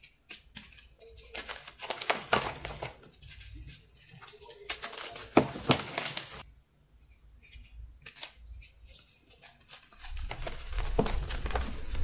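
Dyed chalk blocks crunching and crumbling as they are crushed by hand, in bursts of crackling with short pauses, fuller and louder near the end.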